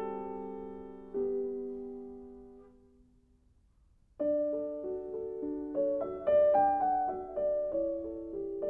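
Solo piano music: a chord rings and slowly fades to near silence, then a slow melody of single notes and chords begins about four seconds in.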